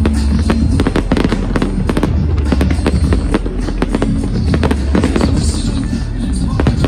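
Fireworks display going off in a dense barrage: many bangs and crackles a second from bursting aerial shells and rockets, over a continuous low rumble.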